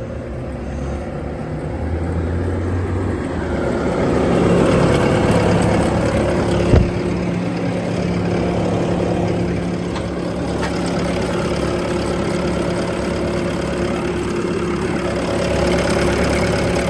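Bobcat T740 tracked skid steer's diesel engine idling steadily, with one sharp knock about seven seconds in.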